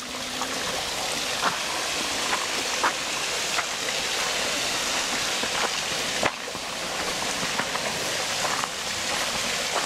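Footsteps on a woodland trail, with irregular sharp cracks of twigs and dry leaves underfoot, over a steady rushing hiss.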